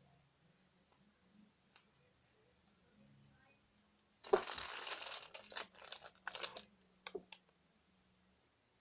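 Crinkling and rustling of something handled, in a dense run of bursts starting about four seconds in and lasting about three seconds, ending with a couple of short sharp crackles.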